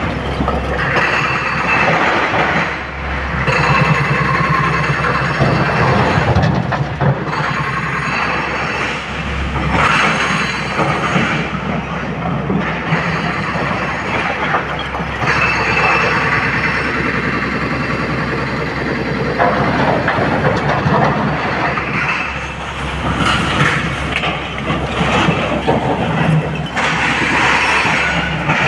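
SANY hydraulic excavator working under load, its diesel engine and hydraulics running steadily while the steel bucket scrapes and digs through a pile of broken stone.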